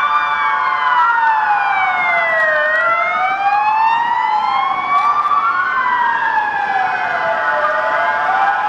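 Two fire-engine sirens wailing out of step with each other. Each glides slowly up and down in pitch, making a full rise and fall about every five seconds.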